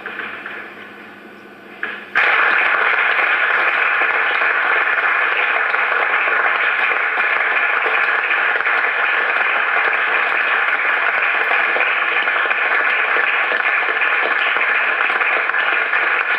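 Audience applause, a dense, steady clatter of many hands. It cuts in suddenly about two seconds in and holds at an even level.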